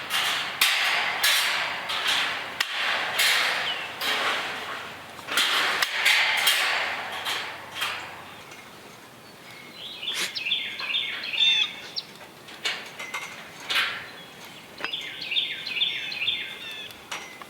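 A run of harsh rasping strokes, roughly one a second, for the first eight seconds or so. Later a songbird sings a quick repeated chirping phrase twice.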